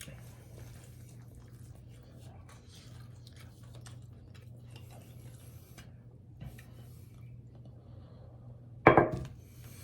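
Quiet eating sounds: faint chewing and small clicks of dishes and utensils over a low steady hum. About nine seconds in, one short loud voice-like sound from the eater.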